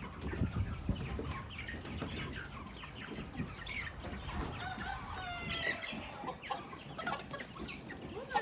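Chickens clucking, with a run of short, separate calls, some of them falling in pitch.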